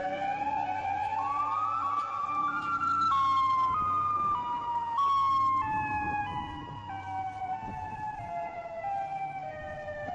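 Siren-like wail used as the giant creature's call: one long pitched tone that rises over the first three seconds, then falls in small steps toward the end, over a low rumble.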